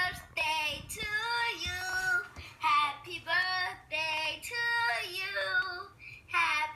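A child singing a song in a high voice, phrase after phrase with short breaks between them.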